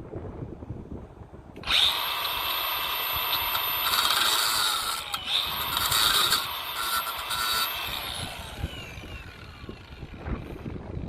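Milwaukee M18 Fuel 2780-20 cordless 4-1/2/5-inch angle grinder switched on about two seconds in. It runs with a high whine for about six seconds, then is released and winds down, its pitch falling.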